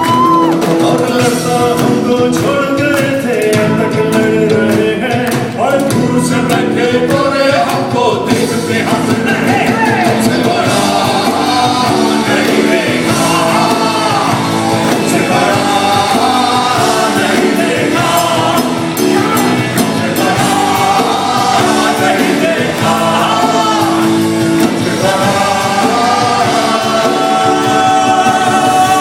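Live band music with singing: a sung melody over a full band, loud and steady throughout.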